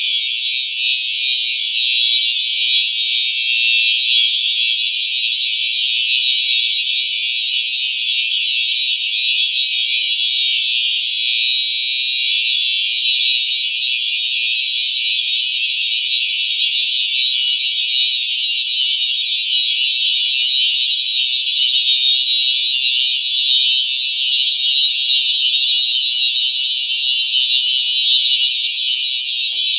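Simplex electronic fire alarm horns sounding together in one continuous, squealy high-pitched tone, steady with no breaks.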